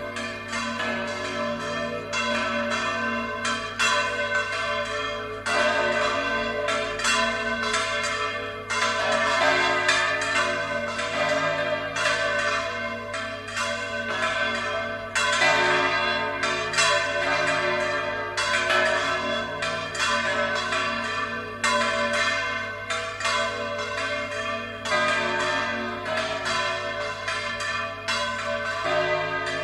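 Church tower bells being swung full circle in a volteo peal, striking again and again in an uneven rhythm, with the strokes overlapping in a continuous ringing.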